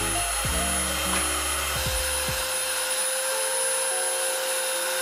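Electric belt sander running steadily upside down, with a wooden board pressed against its moving belt and being sanded.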